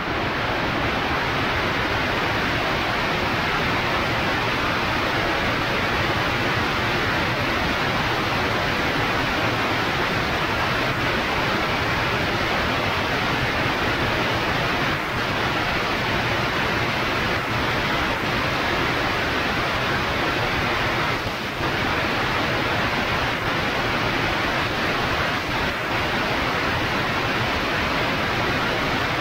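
Steady rushing airflow noise on a Zenith CH 650 B light aircraft in flight, the wind over the outside-mounted camera and the engine blended into one even hiss.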